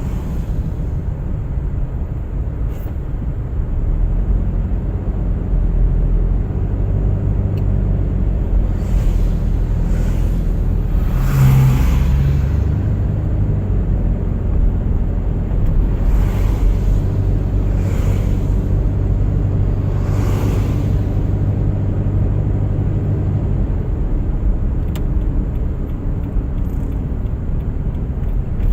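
Car driving on a snowy winter road: a steady low rumble of engine and tyres, with a few brief swishes of other vehicles passing through the middle.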